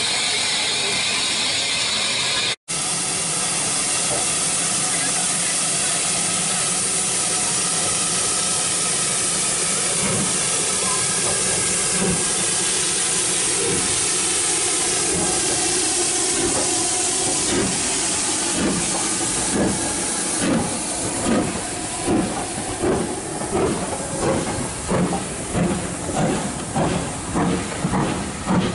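Steady hiss of steam from a steam locomotive. In the second half, BR Thompson B1 4-6-0 61306's exhaust beats start and quicken as it pulls away.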